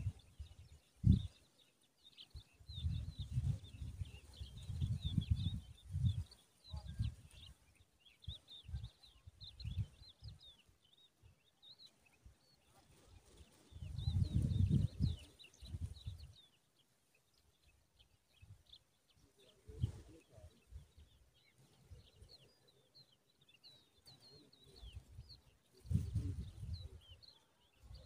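Wind buffeting the microphone in gusts, strongest three times, with many faint high bird chirps going on throughout.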